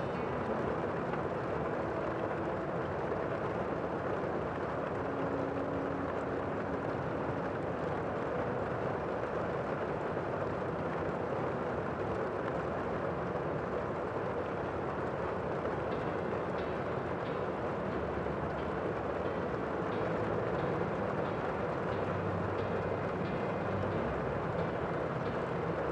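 Steady, even rushing noise with no distinct events; faint fine ticks join it higher up from about two-thirds of the way in.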